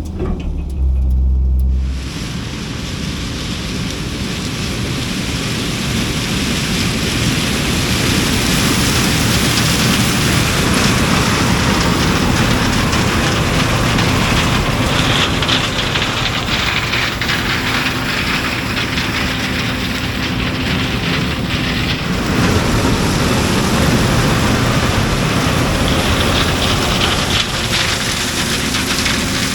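Harvest machinery running in the corn field: a steady engine hum under a dense, loud rushing noise.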